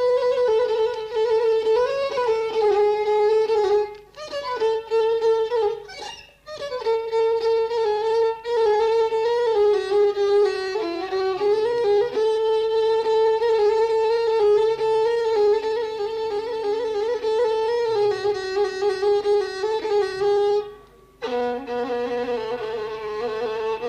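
A solo violin playing an ornamented melody as the instrumental interlude of an Arabic song, with brief breaks about four, six and twenty-one seconds in.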